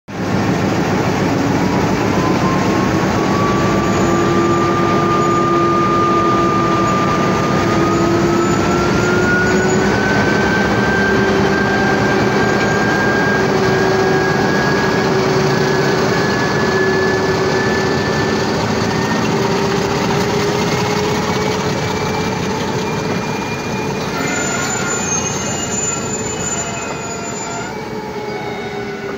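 Sri Lanka Railways M4 class diesel-electric locomotive and its coaches rolling past under an emergency brake application from the pulled emergency chain, the brakes giving a long loud squeal that rises slowly in pitch as the train slows. The overall noise eases a little near the end.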